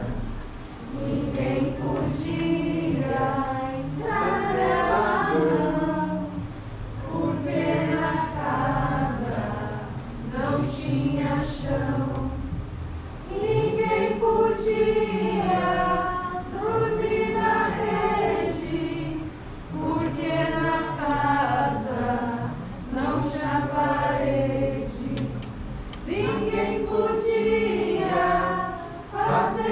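A group of voices singing together like a choir, in phrases of long held notes.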